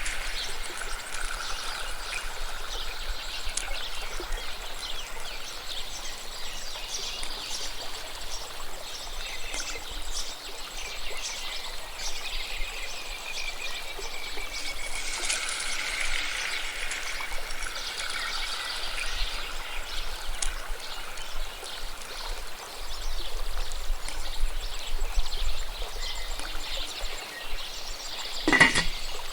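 Steady sizzling and crackling of food frying in hot oil in a pot, with a sharp knock near the end.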